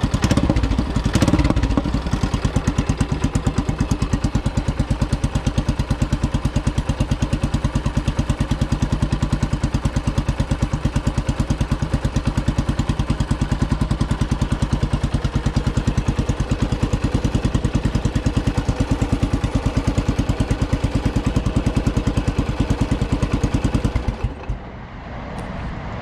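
Yamaha SR400's air-cooled single-cylinder four-stroke engine idling through a MotorRock fishtail upswept muffler, an even, deep, hollow-sounding beat. It has a couple of short louder bursts in the first two seconds and drops away briefly near the end.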